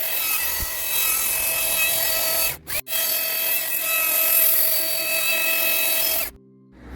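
A high-speed power tool working wood, running at a steady pitch with a constant whine. It breaks off abruptly for a moment about three seconds in and stops suddenly near the end.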